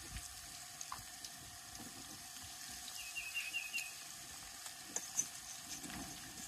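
Fish frying in hot grease in an outdoor propane fryer pot: a steady sizzle with faint crackles. A bird gives a quick run of about five high chirps about three seconds in.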